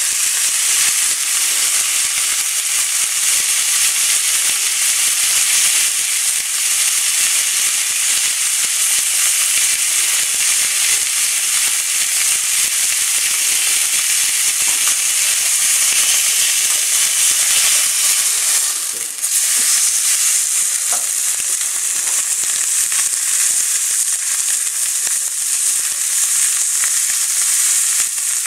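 A beef fillet searing in a hot, lightly oiled pan, the oil sizzling steadily as the underside browns. The sizzle drops away briefly about two-thirds of the way through, then carries on.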